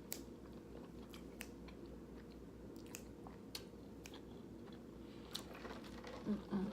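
A person chewing a mouthful of creamy pasta close to the microphone, with wet mouth sounds and scattered small sharp clicks. Near the end a short low vocal sound begins.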